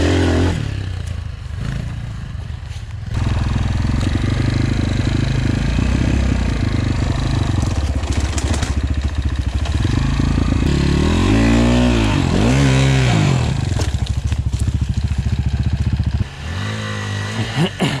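250 cc enduro dirt bike engine running under throttle on a forest trail, heard close up from the bike itself, with two quick revs up and down about two-thirds of the way through. Near the end the loud engine cuts off suddenly and a bike is heard revving more faintly.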